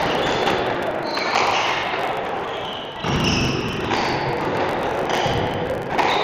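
Squash ball striking the walls and rackets during a rally, heard as repeated sharp thuds ringing in the court.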